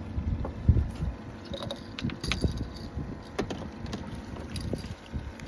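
Wind buffeting the microphone in an uneven low rumble, with scattered light clicks and jangles as a fish is played on the line at the side of the boat.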